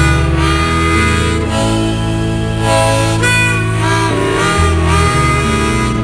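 Rock band playing live: held bass notes changing under a wavering, pitch-bending lead line.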